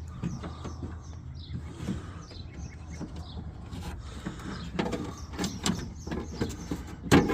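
Small clicks, taps and scrapes of a flathead screwdriver working at the door-latch cable clip inside an opened truck door, with a louder click near the end.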